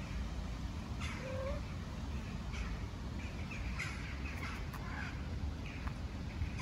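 Birds calling outdoors over a steady low rumble, with a few short sharp clicks in the second half as a cat crunches dry kibble.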